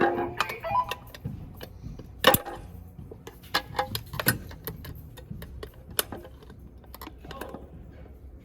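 Scattered sharp clicks and clinks at uneven intervals, the loudest about two seconds in, over a steady low hum.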